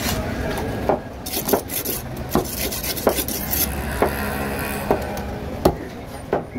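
Large knife cutting through skin-on fish on a wooden chopping block: a rasping, scraping sound as the blade works through skin and flesh, with about eight knocks of the blade striking the block.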